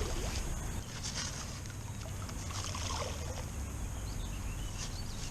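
Riverbank ambience: a steady low rumble of wind and moving water, with a few faint higher sounds.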